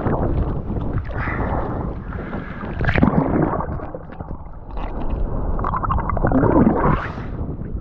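Rough surf water sloshing and splashing around a swimmer's camera, with wind buffeting the microphone; the water surges loudest about three seconds in and again near the end.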